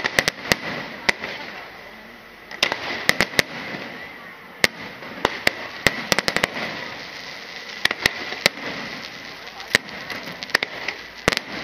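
Aerial fireworks bursting: a quick, irregular string of sharp bangs and cracks that come in clusters, over a steady crackling hiss.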